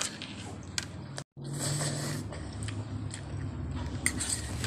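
Fork clicking and scraping against a stainless steel bowl while eating noodles, a few sharp clinks near the end over a low steady hum. The sound drops out completely for a moment about a second in.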